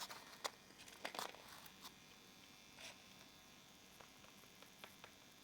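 Near silence: a few faint clicks and rustles in the first three seconds over a low steady hum.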